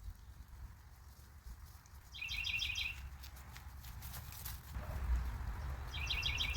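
Wind buffeting the microphone with a low rumble, while a bird gives two short, rapid chattering calls, about two seconds in and again near the end. A few light clicks and knocks fall between the calls.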